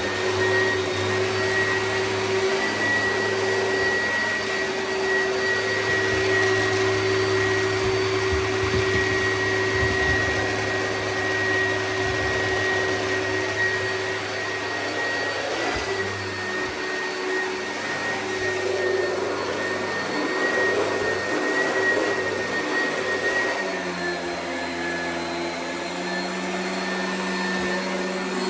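Oreck vacuum cleaner running steadily, its motor giving a constant whine over airflow noise; about three-quarters of the way through the motor note steps slightly lower and a touch quieter.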